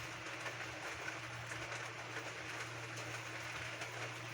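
Steady rain falling on a tiled roof: an even hiss of drops with faint scattered ticks.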